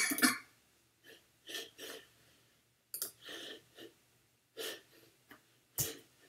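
Quiet room sounds picked up by a council chamber's desk microphones: short faint breaths and rustles, with a sharp knock on a microphone about six seconds in.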